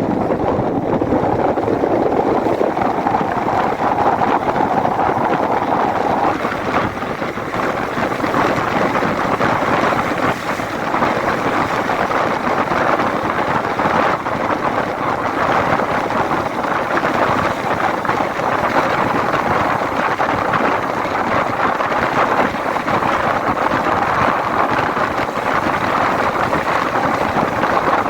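Steady vehicle and road noise, with wind on the microphone.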